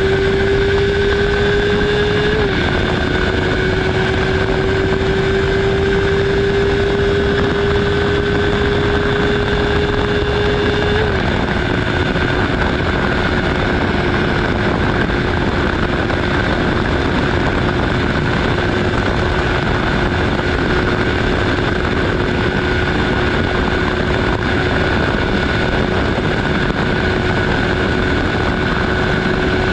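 Honda CBR650R inline-four engine running at high revs at speed, its pitch climbing slowly and dropping suddenly twice with upshifts, a few seconds in and about eleven seconds in, then holding nearly steady. Heavy wind and tyre noise sit under it.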